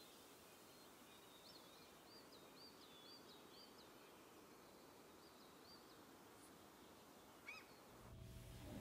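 Faint outdoor ambience with a distant bird giving a quick run of short high chirps, about three a second, then a few more and one sharper call later on. A steady low hum comes in shortly before the end.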